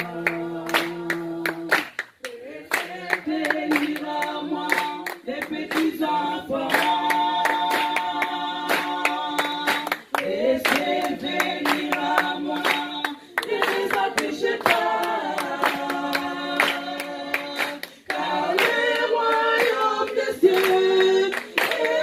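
A church congregation singing a worship song together, with steady rhythmic hand clapping keeping the beat.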